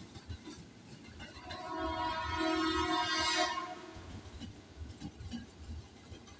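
A KRL Commuter Line electric train sounds its horn as it approaches, one chord-like blast lasting about two seconds, over a low rumble of rolling stock.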